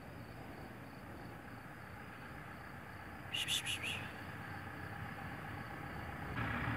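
Steady outdoor background hiss with a faint high steady whine. About three seconds in comes a quick run of four short high chirps, and near the end the background noise steps up.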